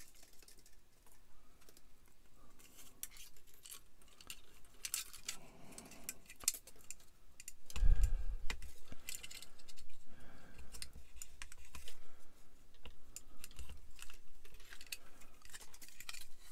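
Light clicks and rattles of hard plastic model-kit parts being handled and turned over in the hands, with a dull bump about eight seconds in.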